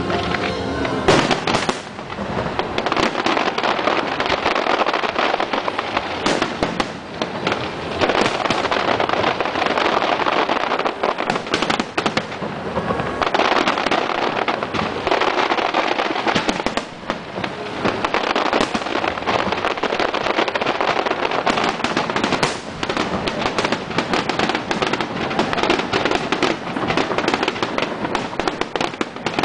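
Fireworks grand finale: a dense, nearly continuous barrage of aerial shell bursts, the bangs overlapping into a rolling crackle, easing briefly every few seconds before picking up again.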